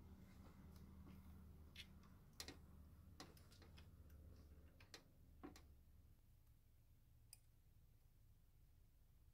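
Near silence, broken by about six faint, sharp clicks and taps from hands working small metal parts in an engine bay while fitting an EGR valve's rear bolt and metal gasket. A faint low hum fades out about six seconds in.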